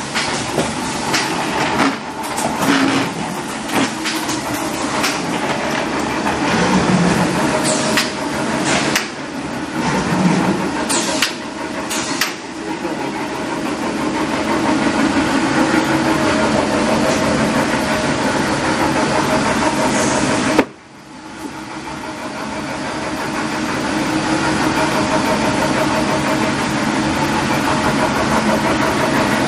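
Corrugated boxmaker running: a steady machine hum with repeated sharp clicks and knocks through the first dozen seconds, then a steadier drone. About two-thirds of the way in the sound cuts out abruptly and fades back up over a few seconds.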